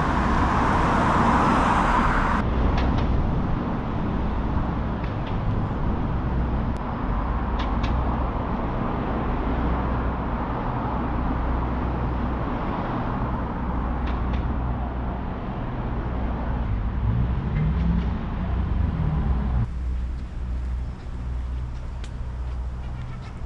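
Street traffic noise: vehicle engines running steadily, with one engine note rising in pitch about three-quarters of the way through as it speeds up.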